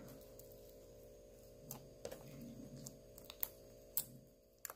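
Faint sticky clicks and pops of glitter slime being worked by hand as a charm is pressed into it, about five scattered clicks over a low steady hum.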